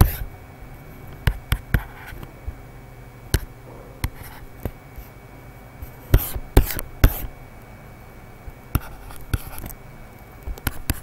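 Pen stylus tapping and stroking on a drawing tablet while handwriting: scattered short clicks and brief scrapes in a few clusters, over a faint steady hum.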